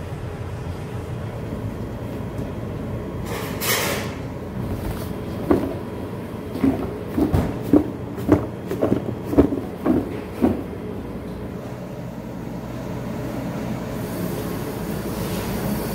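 Plastic tub of small anchovies being shaken and tossed in coating powder: about ten short knocks over some five seconds, over a steady low kitchen hum.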